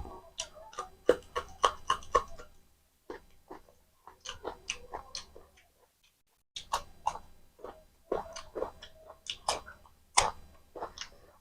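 Close-up, wet chewing and lip-smacking of a person eating spicy mutton curry with rice. The smacks come in quick runs of several a second, broken by two short pauses.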